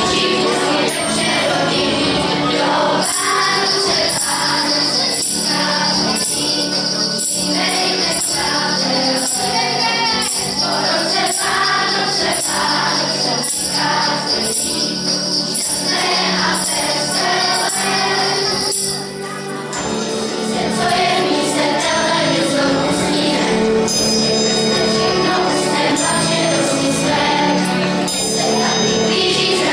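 Children's choir singing a Christmas song to electronic keyboard accompaniment. A bright jingle-bell shimmer rings along through the first two-thirds, then stops.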